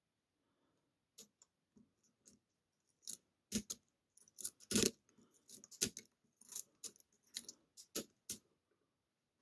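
Lock pick working the custom pins of a pin-tumbler challenge lock held under tension: a run of irregular small metallic clicks and short scrapes, starting about a second in and loudest around the middle. The pins are being lifted from a false set, and lifting the back pin drops part of that false set.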